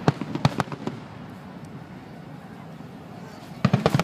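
Aerial fireworks shells bursting: a few sharp bangs in the first half second, a quieter lull, then a quick cluster of bangs near the end.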